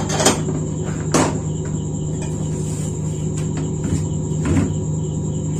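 A few short knocks and rattles as parts inside an opened induction cooktop's plastic casing are handled, the first two close together near the start and one more near the end, over a steady low hum and a constant high-pitched whine.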